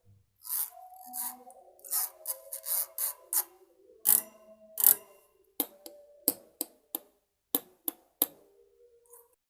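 A run of sharp clicks and strikes with short ringing tones between them, closely spaced for the first few seconds, then single clicks about every half second.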